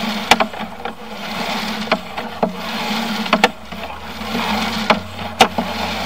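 Sewer inspection camera's push cable being pulled back out of the pipe and onto its reel: steady rubbing and scraping with a low hum under it, broken by sharp irregular clicks and knocks.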